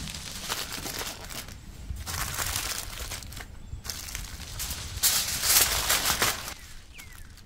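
Aluminium foil crinkling and crackling as it is gathered and pressed by hand around a whole pumpkin, in uneven bursts that are loudest about five to six seconds in.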